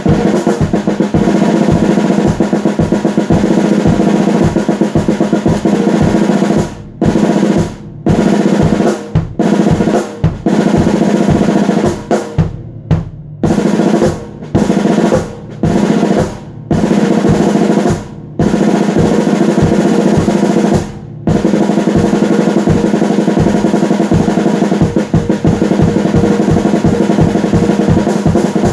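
Fast, loud drumming with rolls, broken by a series of brief stops in the middle before running on continuously.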